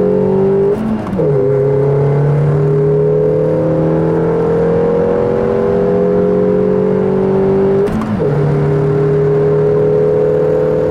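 Audi A2's swapped-in 1.6 MPI petrol engine, heard from inside the cabin, pulling through the gears with its note slowly rising. Two upshifts, about a second in and at about eight seconds, briefly drop the revs. The exhaust has its middle resonator deleted, leaving only the rear muffler.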